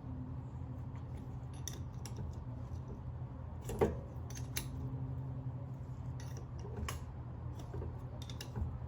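Scattered metal clicks and scrapes of a hand tool turning a rear brake caliper piston back into its bore, with one louder click about four seconds in. A steady low hum sits underneath.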